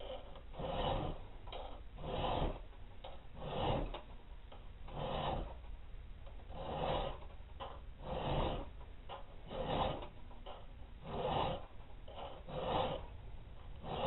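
Round file rasping across the steel spine of a balisong knife blade clamped in a vise, cutting rope-pattern filework notches. Even push strokes come about once every second and a half, with faint clicks between them.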